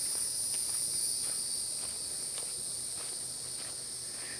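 Steady high-pitched insect chorus, crickets or similar, droning without a break, with faint footsteps on the trail underneath.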